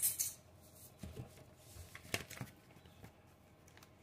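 Faint handling noise: a brief rustle at the start, then a few soft clicks and taps.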